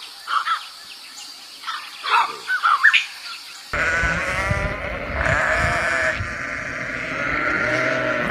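Bleating livestock: several short, high calls, then from about halfway a louder, unbroken chorus of calls.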